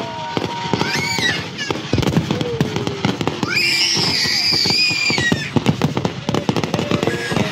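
Aerial fireworks display: a dense run of bangs and crackling from many shells going off in quick succession. A shrill, wavering high-pitched sound rises over the bursts about a second in and again, longer, around the middle.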